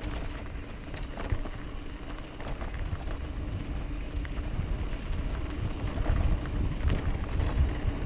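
Wind buffeting the GoPro's microphone as a mountain bike rolls fast down a rocky dirt track, with tyres crunching over gravel and scattered clicks and rattles from the bike. The rumble grows louder in the second half.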